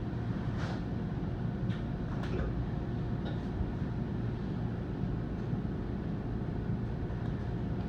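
Steady rumble of an NJ Transit commuter train heard from inside a passenger car, with a few faint clicks and rattles.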